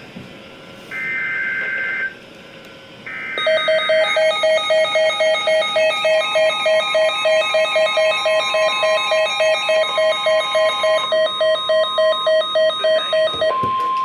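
NOAA Weather Radio alert sequence. Two short screeching bursts of SAME header data come first, then a loud pulsing electronic alarm beeping about three times a second. Near the end the steady 1050 Hz warning alert tone starts, announcing a new severe weather warning.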